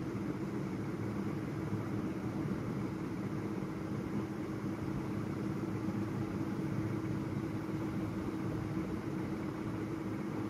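Steady low machine hum with a constant tone, unchanging throughout.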